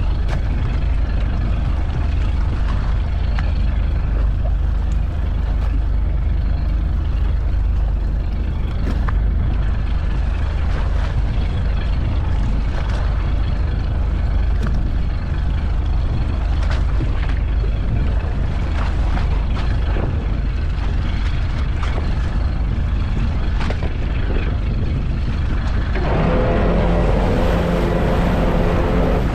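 Fishing boat's engine running steadily, a deep hum under a wash of wind and water. About three seconds before the end a stronger pitched engine note comes in as the engine is throttled up.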